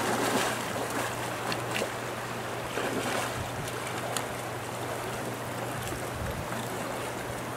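Steady rush of a fast, shallow river running over riffles, with a steady low hum underneath.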